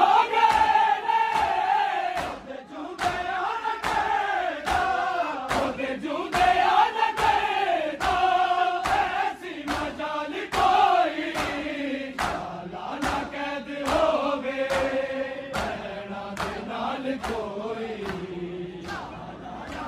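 Men's voices chanting a Punjabi noha (Shia lament) in unison, with sharp rhythmic beats about twice a second from the mourners' chest-beating (matam).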